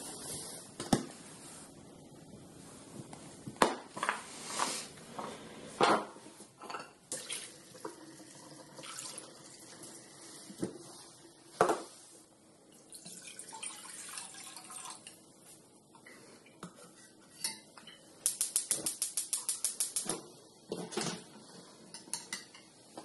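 Kitchen work sounds: dishes, pots and utensils knocking and clinking, with water running at times. About two-thirds of the way in comes a quick run of about ten clicks over two seconds.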